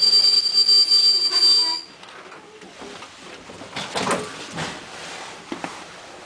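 Passenger train's wheels squealing on the rails, a loud steady high-pitched screech. About two seconds in it cuts off suddenly. What remains is the quieter, duller running noise of the carriage with irregular knocks and rattles.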